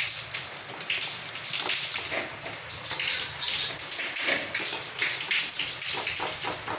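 Water splashing and dripping as a wire spider skimmer scoops boiled fruit slices out of a steel pot of hot cooking water, with short irregular splashes and small knocks.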